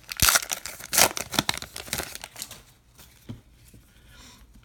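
Wrapper of a 2019 Topps Allen & Ginter trading card pack being torn open and crinkled: a run of sharp crackles for about the first two and a half seconds, then fainter handling of the cards.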